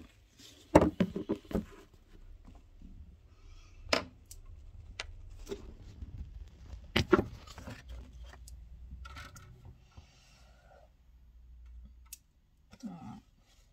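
Small clicks, taps and knocks of makeup items being handled, such as a brush and an eyeshadow palette, over a low handling rumble. The loudest is a quick cluster of clicks about a second in, with single knocks later on.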